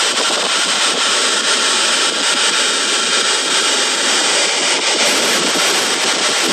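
Steady, loud rushing noise in a car cabin, even and without any clear tone or rhythm.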